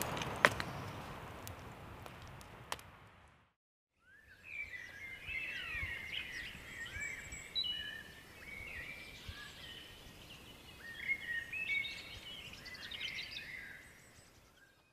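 Outdoor background noise with a few sharp clicks fades out over the first three seconds. After a brief silence, a chorus of birds sings and chirps, with many short rising and falling notes, and fades out near the end.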